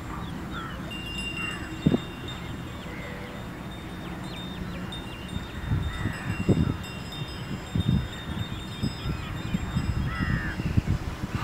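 Birds calling in short chirps and brief calls, with wind gusting in low thumps on the microphone.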